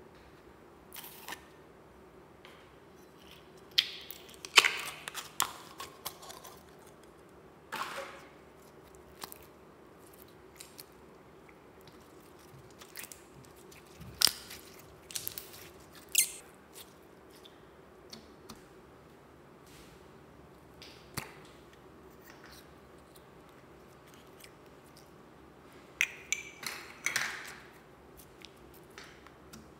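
Slime being squished and pressed by hand in a plastic bowl: irregular wet clicks and crackling pops, coming in clusters with quieter gaps between.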